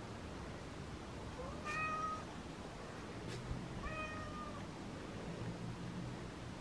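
Domestic cat meowing twice, two short calls about two seconds apart, the first rising briefly at its start.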